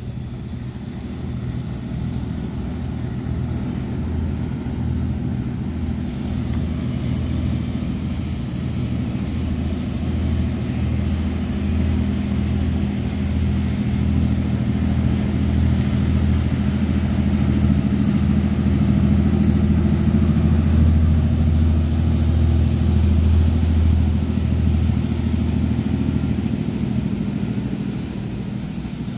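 Pilot boat's engines droning as it passes close at speed: a steady low hum that grows louder to a peak about two-thirds of the way through, then eases as the boat moves away.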